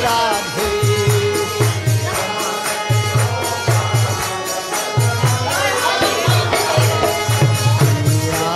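Background music: a devotional chant, a voice singing a wavering melody over a repeated hand-drum rhythm and jingling percussion.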